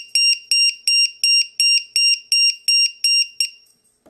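HobbyKing low-voltage LiPo battery alarm beeping rapidly and evenly, about three short high-pitched beeps a second, stopping about three and a half seconds in. It sounds while plugged into a three-cell pack whose cells read about 4.1 volts, which the owner takes for a defective alarm.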